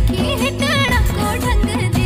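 Folk-style song playing: a singer's ornamented, wavering melody over a steady low beat.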